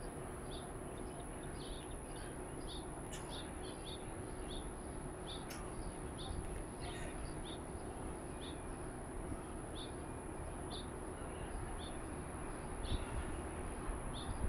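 Faint outdoor ambience: birds chirping in short high notes that repeat every half second or so, over a steady low background hiss and a thin, steady high-pitched tone.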